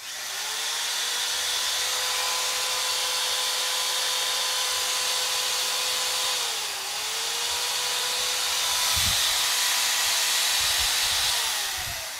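Kawasaki corded electric drill spinning up and running at full speed with a steady whine. Its speed dips briefly and recovers a little past halfway, and near the end it is released and winds down.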